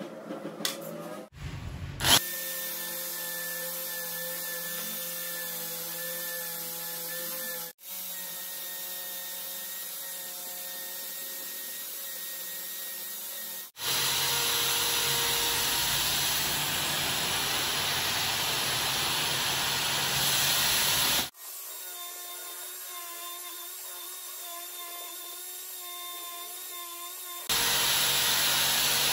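A few clicks as a chuck key tightens the drill chuck, then an electric drill spinning a brass wire wheel brush with a steady motor whine. About halfway through, a steel rod is pressed against the spinning wire wheel for about seven seconds, adding a loud harsh scraping hiss, and the same scraping returns briefly near the end.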